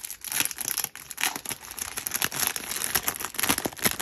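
Product packaging wrapper being crinkled and torn by hand while being opened, a dense run of irregular crackles and rips.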